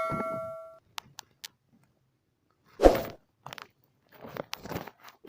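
Metal ringing from a clang dies away in the first second. About three seconds in there is one loud, short thump, followed by faint rustling and small knocks as a collapsible umbrella fish trap is handled before throwing.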